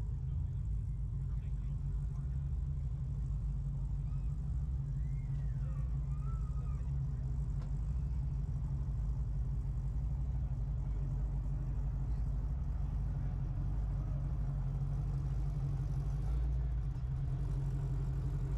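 A vehicle engine running steadily at idle, a low even rumble, with faint voices in the background.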